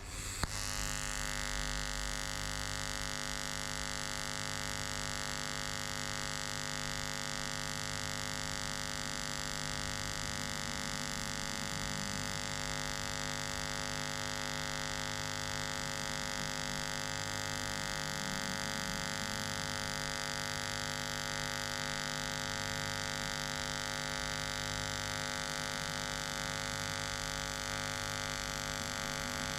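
Pulsed TIG welding arc on stainless steel pipe, making a steady electric buzz. The arc is struck just after the start with a brief crack, then holds an even buzzing tone; the welder's pulse frequency is set at 70.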